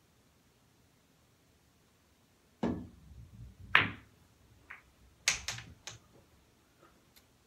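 A pool shot. The cue strikes the cue ball about two and a half seconds in, and balls roll on the table. About a second later comes a sharp click of ball hitting ball, and around five seconds in a quick run of clacks as the balls knock into each other and the rails.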